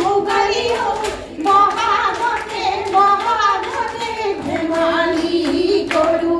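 Women singing an Assamese Jeng Bihu song into microphones, with the dancers' hand claps over it.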